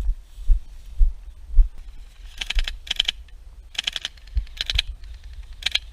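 Thuds about twice a second, like running footsteps jolting the microphone, for the first two seconds. Then come five short bursts of rapid clicking, an airsoft gun firing on full auto.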